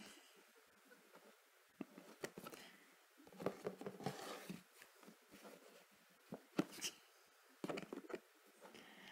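Faint, irregular scratching and tapping on a cardboard box as a pet's paw paws and bats at the box's handle hole and a finger plays at the opening, with a few sharp clicks and rustles.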